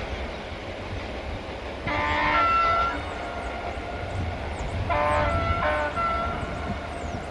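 Train horn sounding a multi-tone chord three times: one blast about a second long, then two shorter ones close together about three seconds later. Underneath is the steady low rumble of the train running away down the line.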